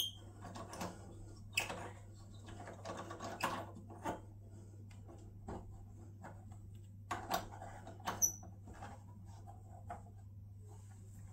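Faint handling sounds of a brass shower wall plate and screws being fitted by hand against a tiled wall: scattered light clicks and knocks, with two brief ringing metallic clinks, one right at the start and one about eight seconds in.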